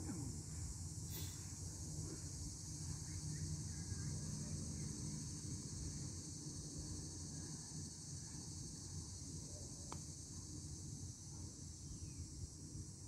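Insects droning steadily in a high pitch over a low outdoor rumble, with a single short sharp click about ten seconds in.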